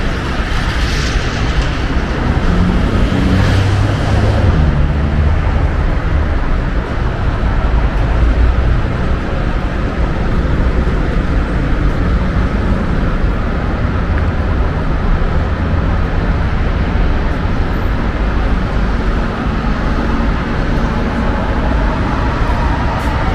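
Steady road traffic noise, a continuous low rumble with a hiss above it.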